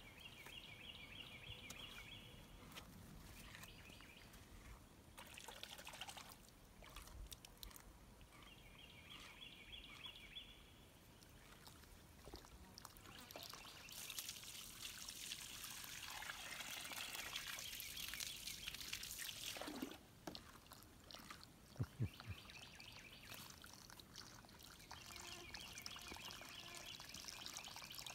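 Water from a garden hose pouring and splashing into a plastic kiddie pool, swelling louder for several seconds past the middle, then dropping away suddenly. Two sharp low thumps come about three quarters of the way through.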